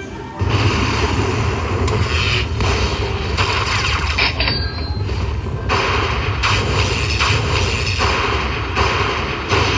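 Slot-machine bonus sound effects mixed with casino-floor noise: a dense, loud rumble with repeated thuds.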